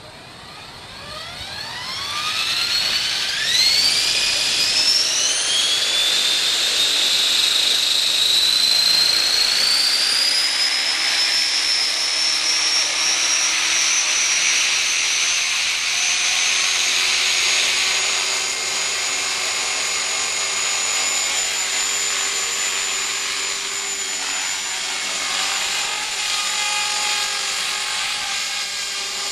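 Align T-REX 450SE v2 electric RC helicopter spooling up: the motor and gear whine rises steeply in pitch over the first several seconds, then levels off to a steady high whine at head speed as the helicopter lifts into a hover.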